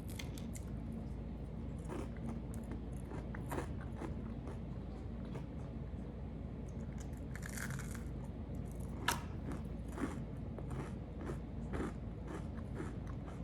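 Close-up chewing and crunching of a piece of air-fried Rice Krispie treat, with irregular small crunches and one sharper crunch about two-thirds of the way through.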